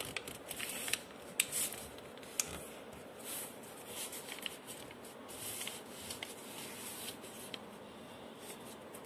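A sheet of A4 paper being folded and creased by hand: faint rustling and sliding of the paper, with a few sharper clicks, most of them in the first few seconds.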